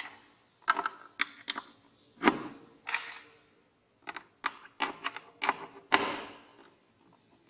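Patch-cord banana plugs clicking and knocking against the sockets and panel of an electronics trainer board as they are plugged in, a dozen or so irregular sharp clicks with a few heavier knocks.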